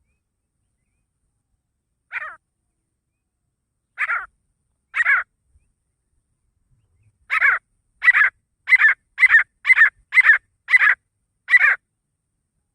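Grey francolin (desi teetar) calling with short, harsh notes. Three single calls come a second or two apart, then a run of about eight calls at roughly two a second.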